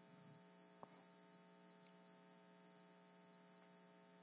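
Near silence: a faint, steady electrical mains hum, with one soft click about a second in.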